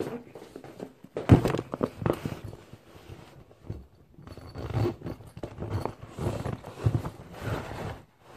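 Rustling and knocking of a shiny holographic school bag being handled and rummaged through close up, with one sharp knock about a second and a half in.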